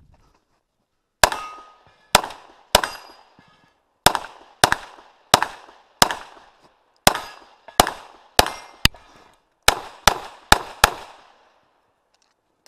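About fifteen 9mm shots from a CZ Shadow pistol, fired in quick pairs and short strings with brief pauses between. Each is a sharp crack with an echoing tail. The shots start about a second in and stop a little before the end.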